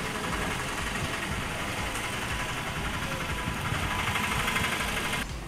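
Tractor engine idling steadily; the sound drops away abruptly near the end.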